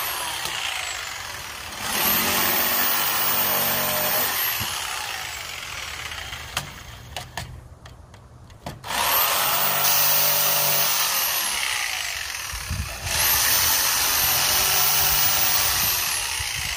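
Jigsaw cutting out the notches of a wooden stair stringer, its motor spinning up and winding down in several runs. About seven seconds in it stops for a couple of seconds with a few clicks, then starts cutting again.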